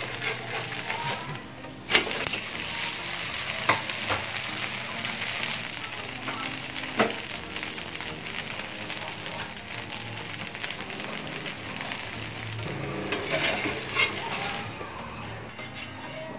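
Thin vegetable dosa batter sizzling on a hot griddle, with a few sharp clicks against the pan. The sizzling dies down near the end.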